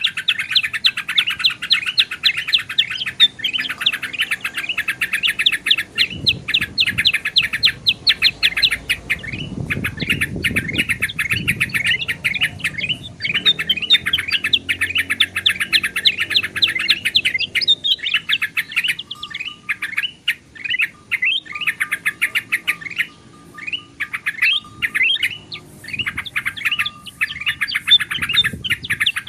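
Bulbuls calling in a rapid, continuous chatter of short notes, a bird-lure mix of yellow-vented bulbul with ruby-throated and black-headed bulbuls. About two-thirds of the way in, the chatter breaks into separate calls with short gaps before becoming dense again near the end.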